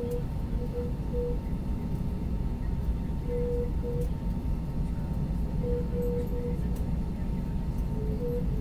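Cabin noise inside an Airbus A320 taxiing on the ground: a steady low rumble of the engines and airframe, with a faint steady whine. Several short, even-pitched tones come and go over it.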